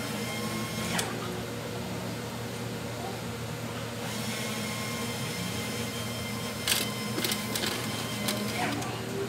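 A steady mechanical hum, with sharp metallic clicks and knocks from hand tools on the crash bar's mounting bolts: one about a second in and a quick run of them near the end.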